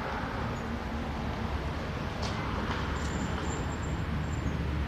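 A steady low engine hum, as of a vehicle idling, with a few faint high chirps about three seconds in.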